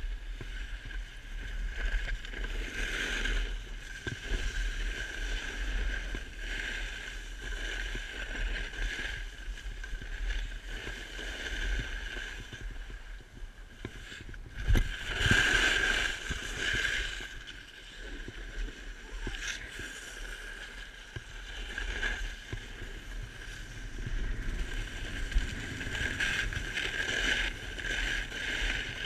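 Snowboard edge scraping and hissing over packed snow during a run, swelling louder a few times, most strongly about halfway through, over a steady low rumble.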